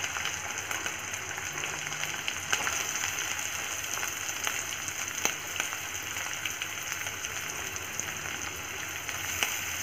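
Freshly added chopped onions frying in hot oil in a kadhai: a steady sizzle with a few faint crackles.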